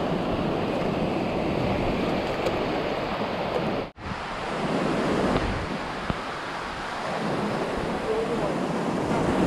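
Surf breaking and washing up a sandy beach, with wind buffeting the microphone. The sound drops out for an instant about four seconds in.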